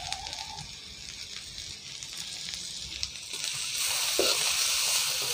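Shredded onion, carrot, cabbage and curry leaves sizzling in an aluminium wok, faint at first. About three and a half seconds in the sizzling grows louder as the vegetables are tossed.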